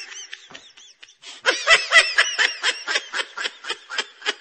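Rapid laughter, a quick run of short 'ha-ha' pulses, about four or five a second, that turns much louder about a second and a half in.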